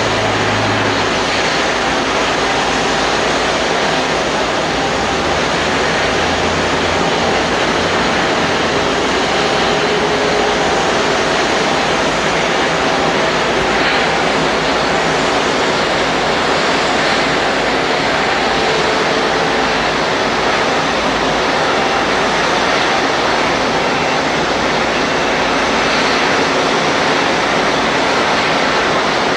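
Boeing 777-200ER's Rolls-Royce Trent 892 jet engines running, a steady loud rushing noise with faint steady tones in it and no break.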